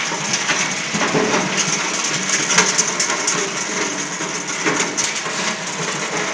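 Single-shaft shredder running under load, its rotor crushing hard plastic and cable scrap: a loud, dense clatter with frequent sharp cracks.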